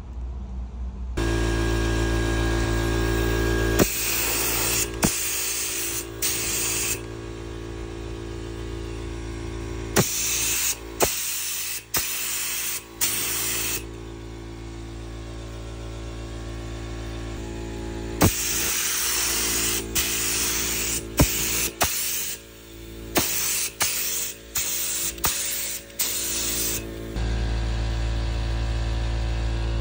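Gravity-feed paint spray gun spraying in repeated bursts of hiss a few seconds long, each cut off with a sharp click of the trigger. A steady hum runs underneath.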